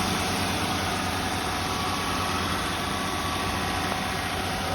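2012 Honda Odyssey's 3.5-litre V6 engine idling with a belt removed: a steady hum with faint steady whining tones over it. This is the hard-to-hear mystery noise that taking the belt off did not cure.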